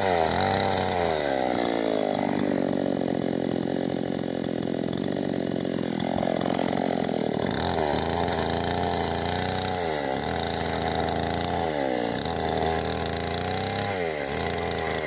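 Two-stroke MS 381 chainsaw at high revs, ripping lengthwise through a meranti log. The engine pitch dips under the load of the cut and climbs back about every two seconds.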